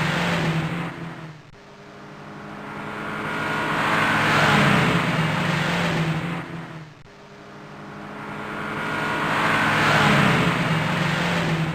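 Car engine sound effect: the engine note swells louder over a few seconds, then falls away sharply, in a repeating cycle about every five and a half seconds, twice in all.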